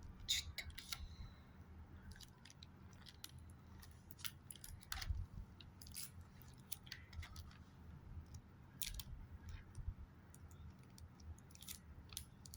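Paper stickers and their packing being handled and pressed into place by hand: scattered soft clicks, taps and rustles.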